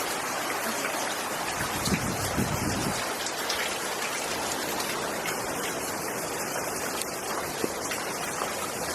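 Heavy hurricane rain pouring down in a steady, dense hiss.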